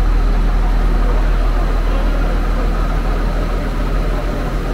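Irish Rail InterCity diesel railcar idling at the platform: a steady engine rumble with a faint, even high whine over it.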